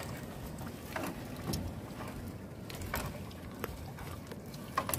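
Irregular splashes, drips and knocks over a low rumble as a gill net is hauled by hand from the sea into a small boat.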